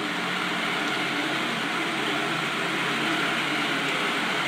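Steady stadium ambience from a football match broadcast: an even, hiss-like background noise with no distinct events.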